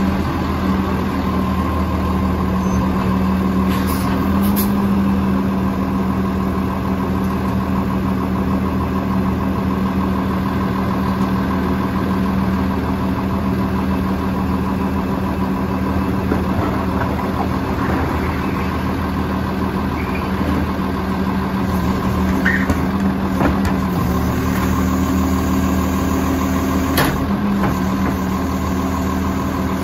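Labrie split-body garbage truck's engine idling steadily while parked. A few short knocks come near the end.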